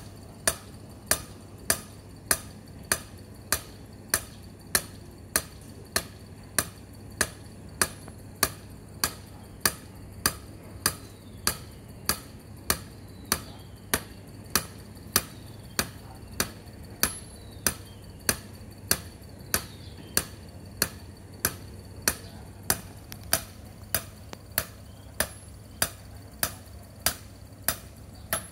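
Club hammer striking the top of a metal earthing rod again and again, driving the ground electrode into the soil. Sharp metallic blows at a steady beat of a little under two a second.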